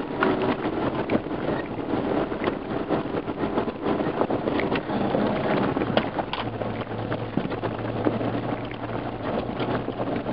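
Off-road 4x4 vehicle driving over a rough dirt track: the engine runs under a busy clatter of knocks and rattles from bumps in the track. A steady low hum comes in about six seconds in.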